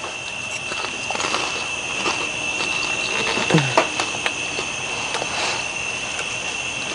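Fork clicking against a plate and quiet chewing of food, over a steady high insect trill.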